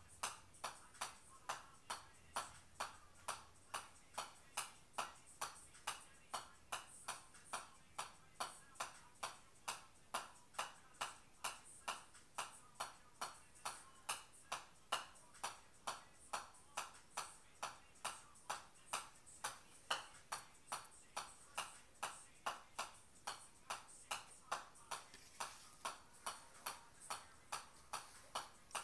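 Golf ball bouncing again and again on the face of a metal pitching wedge, a steady series of sharp clicks at about two and a half a second.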